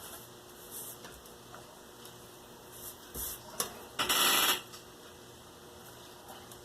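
Handling of cardboard and tools on a work surface: a few soft rustles, then one louder scrape of about half a second about four seconds in.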